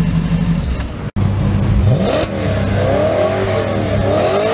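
A car engine idles steadily until a cut about a second in. Then an Audi RS5's V8 is revved, its pitch sweeping up and then rising and falling several times as the throttle is blipped.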